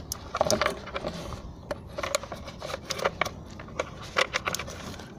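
Irregular plastic clicks, taps and small rattles of Honda N-WGN dashboard trim and wiring connectors being handled as a panel is unplugged and pulled free.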